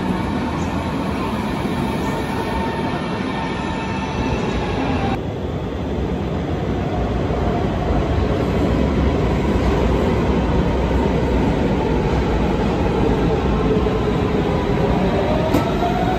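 Berlin S-Bahn electric trains under the station's glass roof. First comes the steady running sound of a train standing at the platform with a faint motor whine. Then the low rumble of a second train pulling in grows louder, and its motor whine dips and then rises in pitch near the end.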